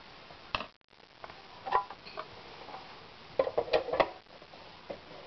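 Spoon and hand knocking against the plastic bowl and lid of a small food processor as roasted butternut squash is loaded in: a few sharp clicks and knocks, with a quick cluster of them about three and a half to four seconds in.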